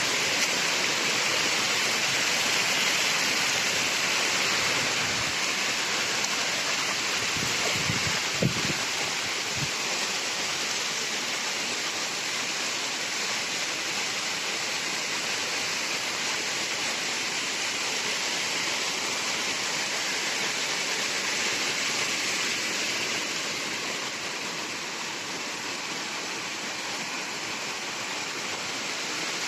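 Waterfall rushing: a steady, even roar of falling water pouring down a rain-swollen hillside, with a couple of faint knocks about eight seconds in.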